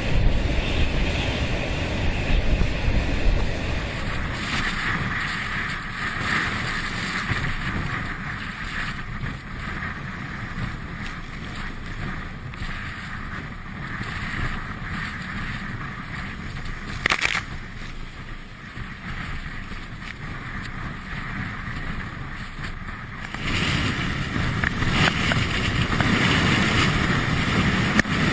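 Steady rushing wind and road noise from a moving car, growing louder and fuller for the last few seconds, with a single sharp knock about 17 seconds in.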